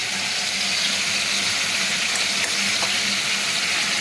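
Snails and spices frying in a kadhai on a gas stove: a steady sizzling hiss.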